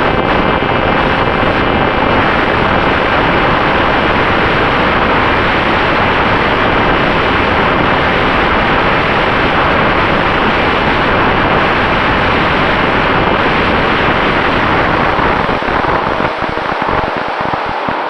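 Heavy wind noise on the microphone of an FX-61 flying wing, with the faint steady whine of its electric pusher motor and propeller underneath. The low rumble of the wind eases and breaks up near the end.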